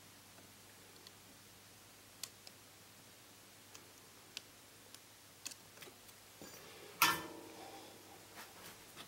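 Sparse light clicks and taps of small tools being handled at an electronics repair bench, with one louder knock about seven seconds in that rings briefly.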